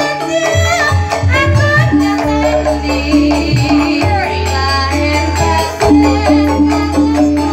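A sinden (female Javanese singer) singing live through a microphone over an amplified band with deep bass and steady percussion; her voice slides through a long ornamented run about four seconds in.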